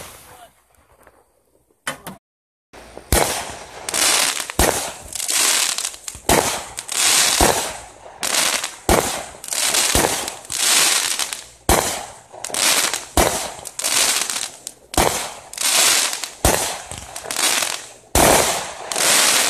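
Consumer fireworks going off: one loud bang at the start, then after a brief break a run of about two dozen shots, roughly one every two-thirds of a second, each a sharp report trailing off in a hiss.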